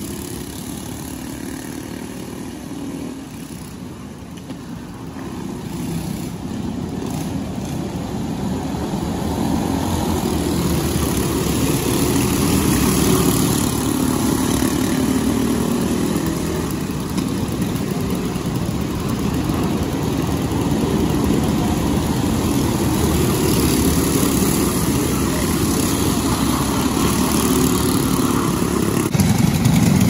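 Racing go-kart engines running at speed on the track, the sound building over the first several seconds and then staying loud and steady, with another rise near the end.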